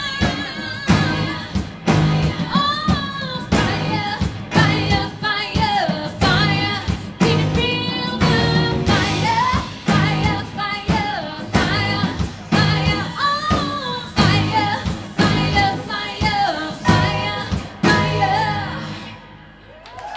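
Live pop-rock band playing: a woman sings lead over electric keyboard, drum kit and bass guitar with a steady beat. The song's last chord dies away near the end.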